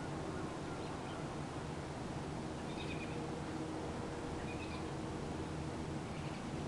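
A few faint, short bird chirps, about three seconds in and again near five seconds, over a steady background hiss.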